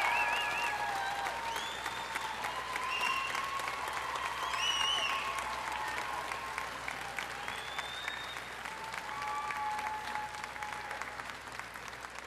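Outdoor crowd applauding, with a few short high whoops over the clapping, which slowly dies down.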